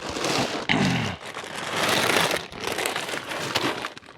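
Crinkling, rustling noise of a sack of deer corn being handled at a feeder, loudest about two seconds in.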